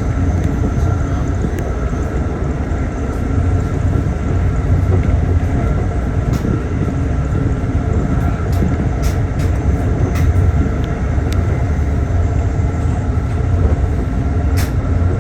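Inside an Amfleet passenger car moving at speed: a steady low rumble of wheels on rail and car body, with a few sharp clicks now and then.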